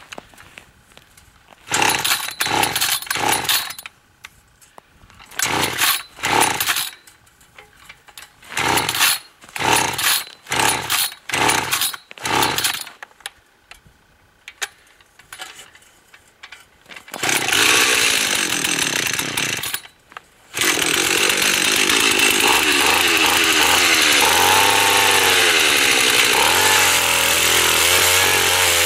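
Gas-powered ice auger's small engine being pull-started cold on choke: about a dozen short pulls on the starter cord in several groups over the first dozen seconds. The engine catches about 17 seconds in, cuts out briefly near 20 seconds, then catches again and runs steadily with some changes in speed.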